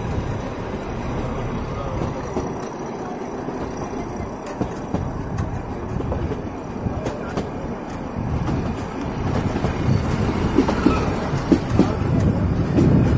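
Nilgiri Mountain Railway carriage rolling on its metre-gauge track: a steady rumble of wheels on rail and coach rattle, with scattered sharp clicks.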